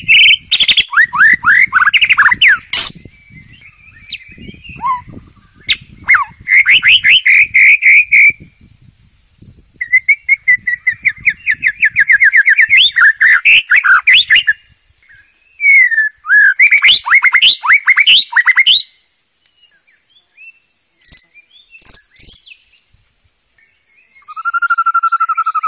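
White-rumped shama singing loudly: phrases of fast, varied trills and whistles, each a few seconds long with short pauses between, and a few scattered single notes in the last third.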